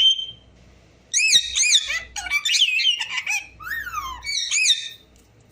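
Parrot whistling a quick run of rising-and-falling notes, with a falling whistle about four seconds in.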